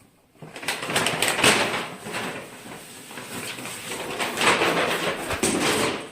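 Rustling and scraping in uneven bursts, starting about half a second in and loudest about a second in and again around four and a half seconds in: a cat struggling to pull its head out of something it is stuck in.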